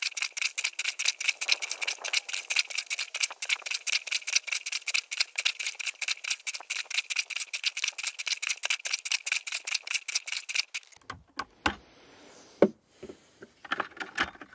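Breathing Mobile Washer plunger pumped rapidly up and down in a bucket of rinse water, a fast, even run of strokes, several a second, while rinsing cloth diapers. The strokes stop about eleven seconds in, followed by a few separate knocks, one of them sharp.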